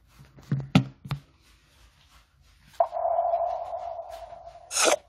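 A few faint clicks, then a steady buzzy hum lasting about two seconds that ends in a short sharp rush: sound effects from the opening of an animated ECG lesson.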